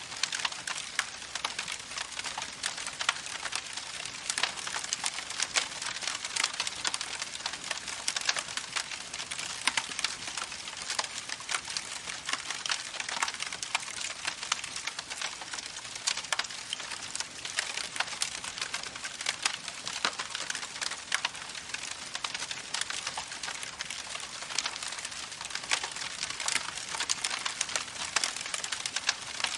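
Campfire crackling with many small, quick pops over the steady rush of a babbling creek.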